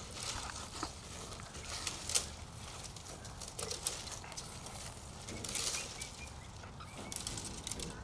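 Quiet outdoor background: a steady low rumble with scattered short rustling noises and a few faint chirps near the end.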